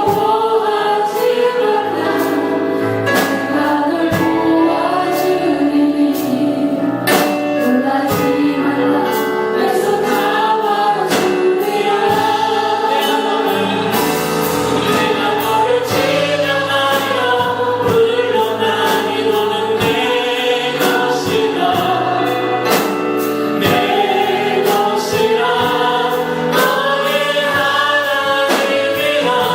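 A choir singing a Christian worship song with instrumental accompaniment and a steady drum beat.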